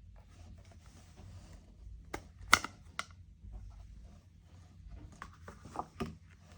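Scattered sharp clicks and light knocks of computer hardware being handled, about half a dozen, the loudest about two and a half seconds in, over a low steady hum.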